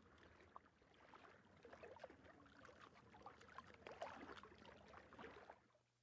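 Faint water trickling and lapping, a dense patter of small bubbly plinks that builds a little and then cuts off suddenly shortly before the end.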